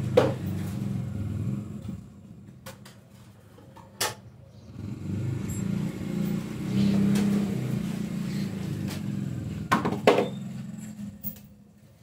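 A low motor rumble that fades about two seconds in, comes back and swells, then dies away near the end, with a few sharp knocks along the way.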